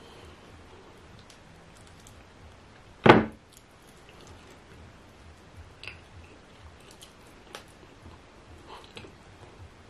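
Close-miked eating by hand: faint wet smacks and clicks of fingers working fufu through slimy ogbono soup and of chewing, with one loud, short thump about three seconds in.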